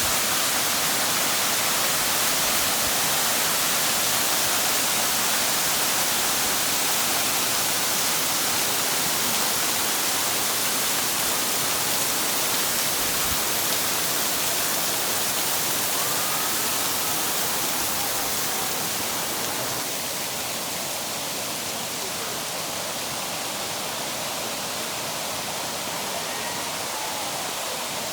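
Waterfall rushing: a steady wash of falling water with no pauses. It drops a little in loudness about two-thirds of the way through.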